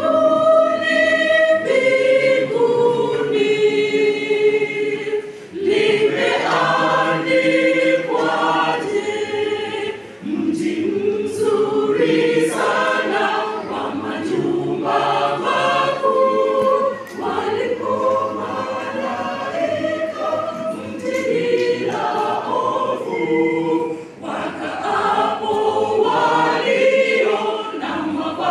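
Mixed choir of men's and women's voices singing together in sustained phrases, with a few short breaks between phrases.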